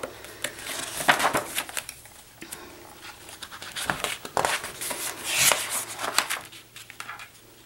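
Paper pages of a spiral-bound sketchbook being handled and turned by hand: irregular rustles and brushes against the paper, with a longer swish about five seconds in as the page flips over.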